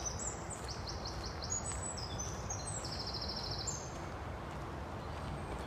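Songbirds singing: short high trills and chirps overlapping through the first few seconds, over a steady low background rumble.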